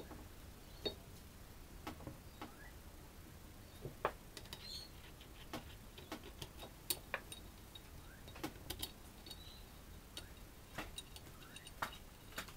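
Scattered light clicks and taps at irregular intervals as the rotary compressor's pump housing is handled and fitted over the motor shaft.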